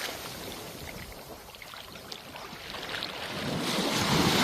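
Waves washing onto the beach: one surge of surf fades away just after the start and another builds toward the end.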